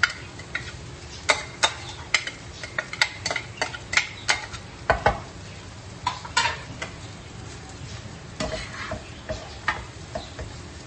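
A spoon scraping cooked rice out of a bowl into a nonstick frying pan, then a spatula tossing and mixing the rice through mint chutney. Repeated sharp clicks and scrapes of the utensils against the pan sound over a low, steady sizzle from the pan on the gas.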